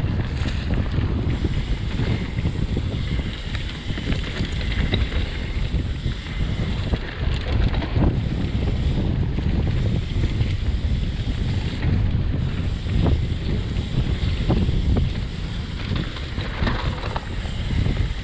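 Wind buffeting the microphone over a continuous low rumble of tyres on a dirt trail, with frequent small knocks and rattles, as from a mountain bike riding fast downhill.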